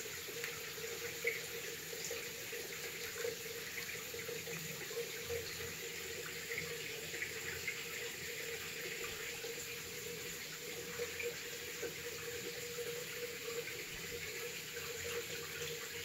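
Soft water splashes and drips as an Alexandrine parakeet dips its beak into a tub of water, with small scattered ticks over a steady background hiss and hum.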